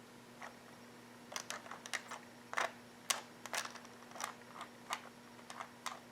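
Light, irregular clicks and taps from the hands-on handling of a model train test, about twenty in quick succession starting about a second in, over a faint steady hum.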